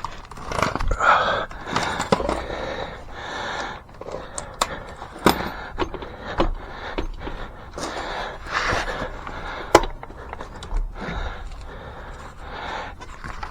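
Hand work on a motorcycle's rear wheel and chain: irregular scrapes and rustling, with sharp metal clicks and knocks, the loudest about five seconds in and again near ten seconds.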